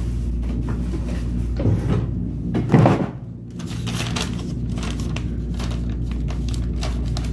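Knocks and rustling from a phone camera being handled and set in place, over a steady low hum, with two louder bumps about two and three seconds in.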